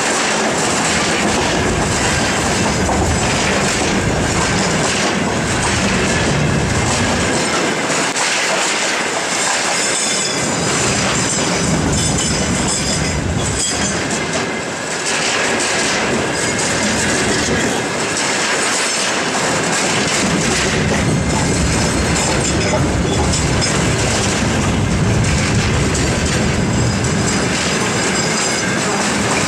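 Covered hopper wagons of a freight train rolling past at close range: a steady rumble of wheels on rail, with clattering as the wheels cross the rail joints.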